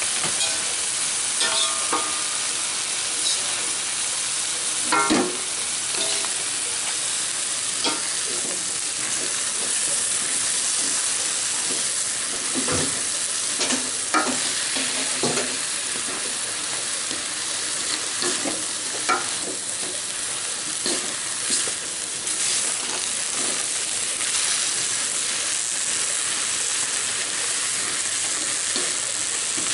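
Papaya leaves stir-frying in oil in a metal wok: a steady sizzle, with scattered knocks and scrapes as a wooden spatula turns the greens against the pan.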